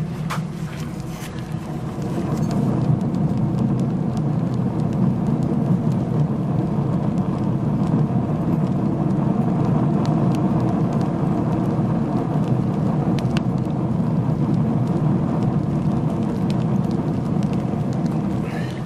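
Sawdust furnace burning hard, a steady rumble of fire and draft that grows louder about two seconds in, with scattered light ticks.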